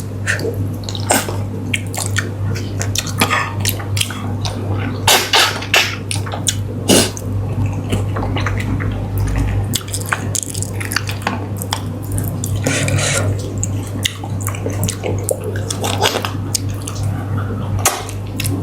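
Close, wet eating sounds: a person sucking meat off pieces of sea catfish in curry and chewing, with many sharp lip-smacks and clicks. A steady low hum runs underneath.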